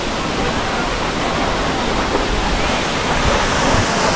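Steady rush of the Madhabkunda waterfall, water falling and splashing without a break.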